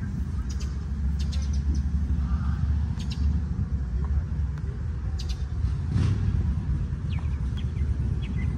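Low, steady rumble of car engines running, with short high chirps scattered over it.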